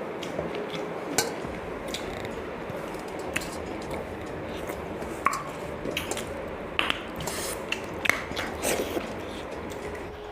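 Eating sounds as pakhala (water rice) is eaten: scattered clicks and light clinks of dishes over a steady background hiss.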